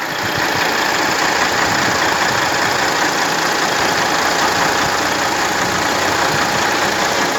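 A truck's diesel engine idling steadily, heard with the hood open.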